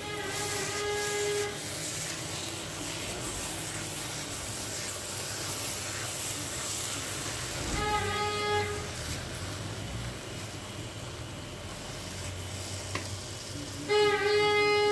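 Grated carrots cooking down in a wide pan, a steady sizzling hiss as they are stirred with a wooden spoon. Three times, at the start, about halfway and near the end, a steady horn-like tone with overtones sounds for about a second, loudest the last time.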